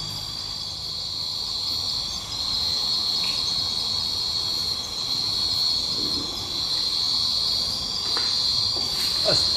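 Chorus of crickets: a continuous high-pitched shrill trill that swells slightly in level now and then.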